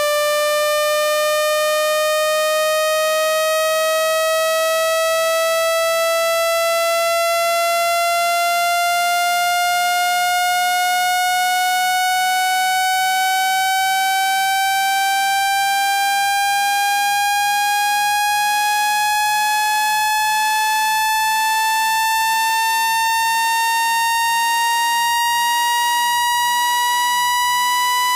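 Speaker-cleaning tone for ejecting water from a phone speaker: a single buzzy electronic tone with many overtones, slowly and steadily rising in pitch.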